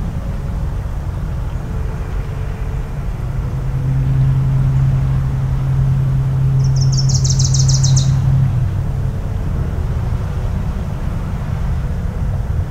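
A distant foghorn sounds one long, low, steady blast of about five seconds over a constant low rumble of wind and surf. Near the end of the blast a bird gives a quick run of high, rapid notes.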